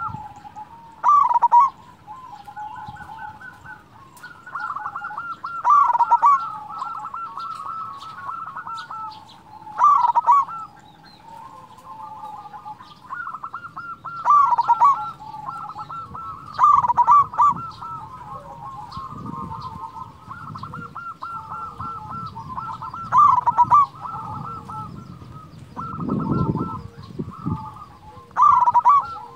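Zebra dove (perkutut) singing its cooing song: quick stuttering coos that run into a louder, fuller call, repeated about every four to six seconds, with softer trilling coos in between. A short low rumble comes near the end.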